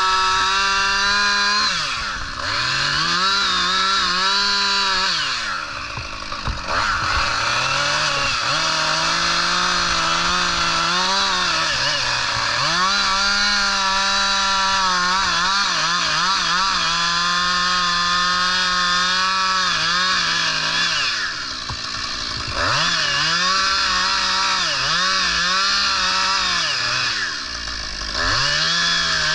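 Two-stroke chainsaw making a dog-tooth cut into a leaning tree trunk, running at high revs under load in the wood. The revs drop back several times as the throttle is eased and then pick up again.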